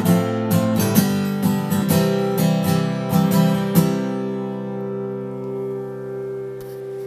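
Acoustic guitar played with the fingers, strumming chords in a quick rhythm. A little before halfway a last chord is left to ring out and slowly fade, closing the song.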